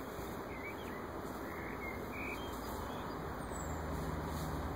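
Small birds chirping briefly in short, scattered calls over a steady outdoor background hiss, with a low steady hum coming in near the end.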